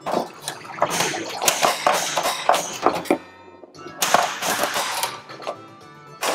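Williams White Water pinball machine in play: its game music and sound effects mixed with the sharp clacks of the flippers and the ball striking targets, with a short lull a little past halfway.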